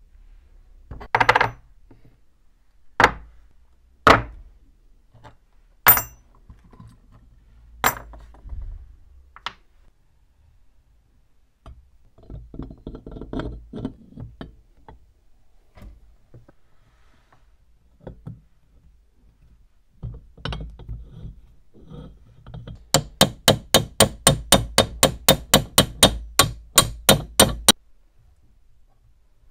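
Metal parts of a restored cast-iron hand meat grinder being put back together: separate knocks and clinks as parts are set down, and a rattling scrape midway as the worm auger goes into the barrel. Near the end comes a fast, even run of sharp clicks, about five a second, for several seconds.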